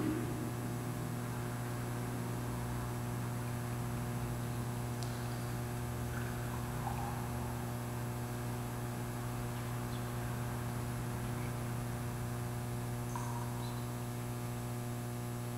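Steady electrical mains hum, with a few faint small knocks and rustles scattered through it.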